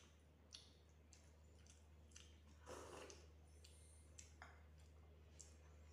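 Faint sounds of two people eating rice and curry by hand from steel plates: scattered small clicks and chewing, with a louder wet squish about three seconds in. A steady low hum lies under it all.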